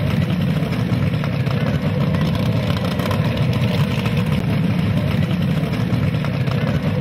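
An engine idling steadily, a low rumble with a fine even pulse throughout.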